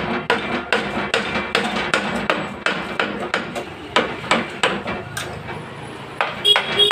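Repeated hammer blows on the aluminium crankcase of a Hero Honda Splendor NXG motorcycle engine, about three strikes a second, knocking the case halves apart. After a short pause about five and a half seconds in, the last few blows ring more.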